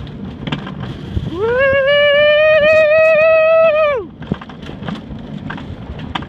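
Mountain coaster cart rumbling and clattering down its steel tube track. About a second in, the rider lets out one long, loud held "whooo" yell that rises, holds and drops off about three seconds later.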